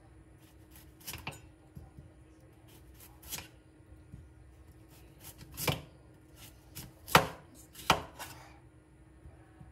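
Knife chopping on a cutting board in slow, irregular strokes, the loudest three in the second half.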